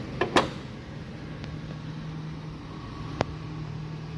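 Chevrolet Express van's hood being shut: two thumps close together, the second the louder. A single sharp click follows about three seconds later, over a steady low hum.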